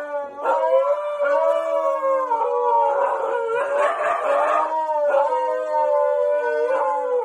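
Huskies howling together: several long, held notes overlapping at different pitches, bending slowly up and down.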